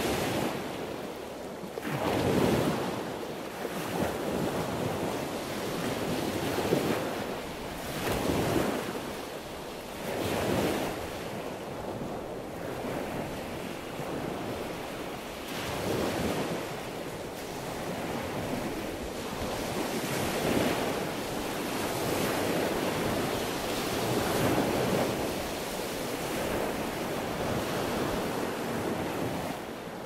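Sea waves washing and breaking in a continuous surf, swelling and falling back every few seconds.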